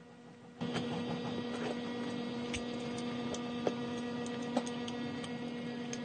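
A steady electrical hum cuts in about half a second in, with a few faint clicks and smacks of someone eating with their fingers.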